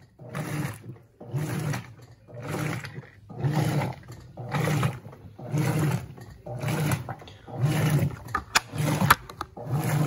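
Electrolux LB12Q top-loading washing machine's agitator working back and forth in water, about one stroke a second, each stroke a low motor hum with water sloshing, and a couple of sharp clicks near the end. This is its level-check agitation: the machine is sensing whether the water it has let in is enough for the load.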